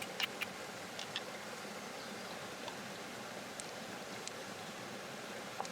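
Steady background hiss with a few sharp, light clicks and taps scattered through it, two close together just after the start and a pair about a second in.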